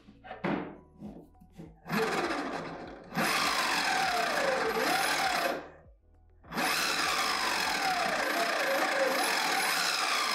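6374 brushless motor of a home-built servo spinning its 3D-printed herringbone gearbox in bursts: a few short spurts in the first two seconds, then two longer runs whose whine keeps sliding down and up in pitch as the motor speeds up and slows. The speed controller is still set to an electric mountainboard's current-control mode, so the speed is hard to hold.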